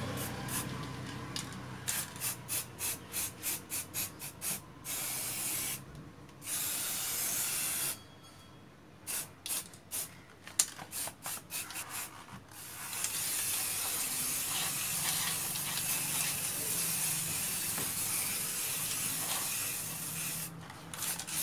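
Aerosol can of matte black spray paint hissing, first in many short quick bursts, then in one long steady spray through most of the second half.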